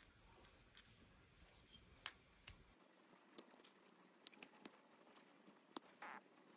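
Faint handling sounds of a metal pick pressing a paper liner into a small metal gas cap: scattered light ticks and clicks, with a short scratch about six seconds in.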